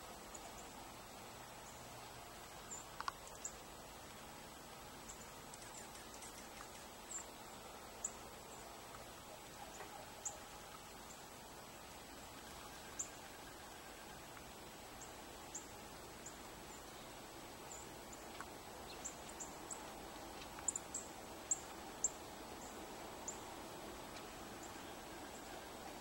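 Faint, very high, thin call notes from small songbirds at a seed feeder, short and scattered, coming closer together near the end, over a steady background hiss.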